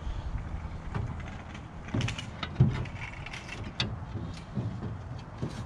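Irregular knocks and clatter as a thin aluminium sheet and a board panel are handled and pushed into place against the inside of a jon boat's transom, the loudest knock near the middle.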